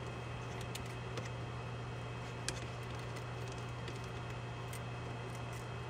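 Faint small clicks and taps of fingers handling a circuit board and cable connector in an acrylic case, the most distinct about two and a half seconds in, over a steady low hum.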